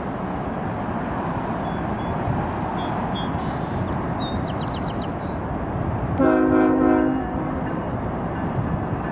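One short blast, about a second long, of a GE Evolution Series (GEVO) freight locomotive's air horn, a little past the middle. Under it runs the steady rumble of a freight train's cars rolling past.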